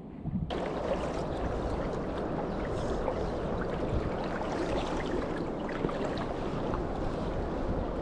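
Steady rushing of flowing river water, which starts abruptly about half a second in.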